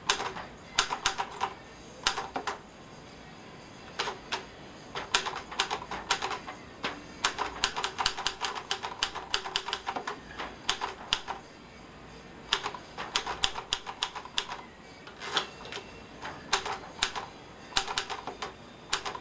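1949 Hermes Baby portable typewriter being typed on: quick runs of sharp key strikes with short pauses between words.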